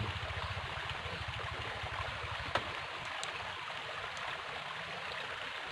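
River water flowing steadily, with a low rapid throbbing that fades out about halfway through and a single sharp click about two and a half seconds in.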